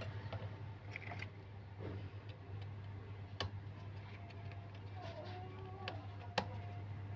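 Small sharp clicks and taps of tools and phone parts being handled, the loudest about six seconds in, over a steady low hum.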